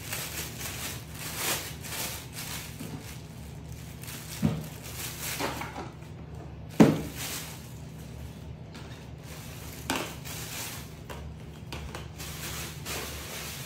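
Handling noises of a plastic bag of fried breadsticks: crinkling and a few short knocks, the sharpest about seven seconds in, over a steady low hum.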